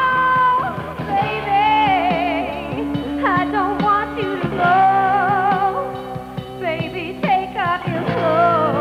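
A woman singing a pop-rock song, backed by a band with electric guitar and drums. She holds long notes with a wavering vibrato.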